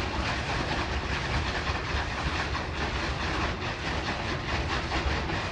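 Steam-hauled freight train of open wagons rolling past, wheels clattering over rail joints amid a steady hiss of steam.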